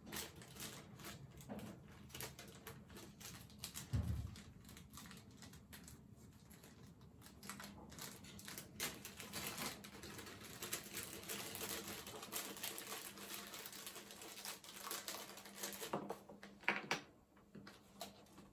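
Unpacking and handling noise: a dense run of small clicks, taps and rustles, with a low thump about four seconds in.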